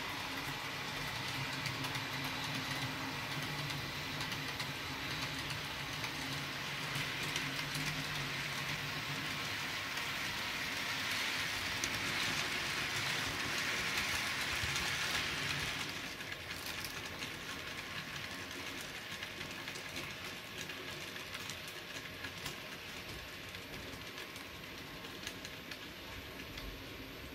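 N gauge model train running along the track: a steady whirr from its motor and wheels on the rails. It grows louder as the train passes close by, drops suddenly about sixteen seconds in, then fades as the train runs away.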